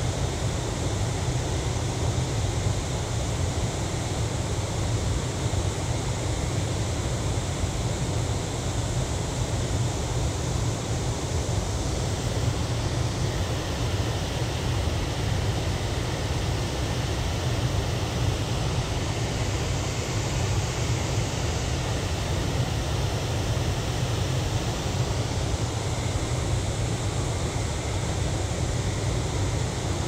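Waterfall pouring into a rock pool: a steady rush of water with a deep rumble underneath.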